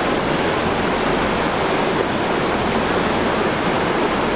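Mountain torrent rushing over boulders: a steady, unbroken wash of white water.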